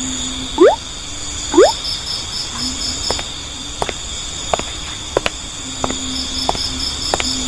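Night ambience of crickets chirping steadily, with two quick rising swoops in the first two seconds and a scattering of short clicks after about three seconds.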